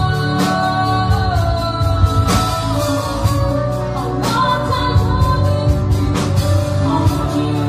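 Small band playing a song live: guitar and bass under a sung melody, with a sharp hit about every two seconds.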